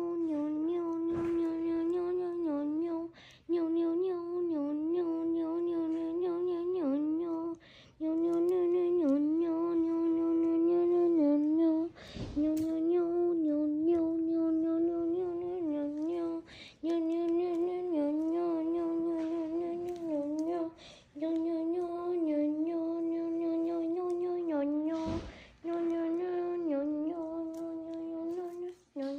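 A voice droning on one high-pitched note in a steady hum. Each note is held for a few seconds with small dips in pitch, and is broken by short pauses roughly every four seconds.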